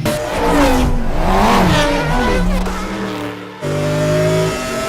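Car engine revving up and down. About three and a half seconds in it cuts sharply to a second, steadier engine run that slowly drops in pitch.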